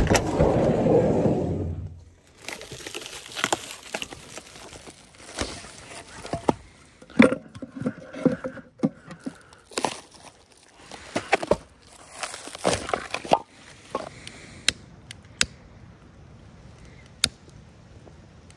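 A Volkswagen Westfalia van's sliding door is rolled open, followed by a run of knocks, cracks and crinkling as split firewood and a plastic wrapper are handled. Near the end come a few single sharp clicks from a long-necked utility lighter being sparked.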